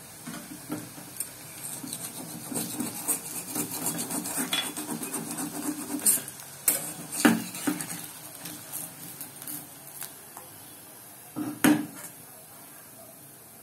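Metal spatula scraping and clinking against a metal pan while turning battered pumpkin-flower fritters, with a run of small scrapes and a few sharper knocks in the middle and one more near the end.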